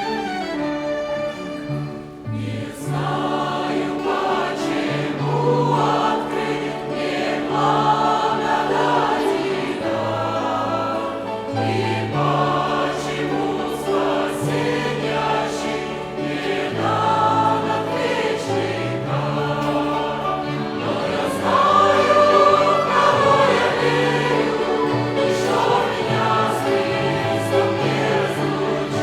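Church choir singing a slow hymn with a violin ensemble accompanying. The violins play alone at first, and the choir comes in about two seconds in.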